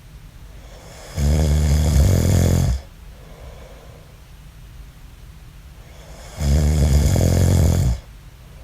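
A man snoring in his sleep: two long, loud snores about five seconds apart, each lasting about a second and a half, with quiet breathing between them.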